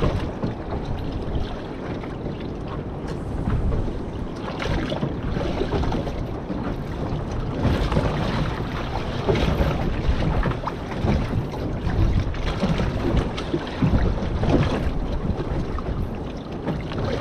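Strong wind buffeting the microphone, gusting up and down, over the wash of waves and swell around a small boat.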